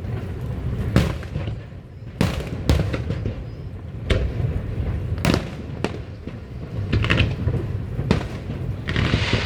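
Fireworks bursting overhead: a series of sharp booming bangs, about one every second or two, over a low rumble, turning to a dense crackle near the end.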